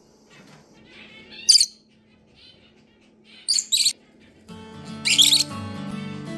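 Pet birds calling: four short, shrill calls, the loudest sounds here, over quieter chatter. Background music comes in about two-thirds of the way through.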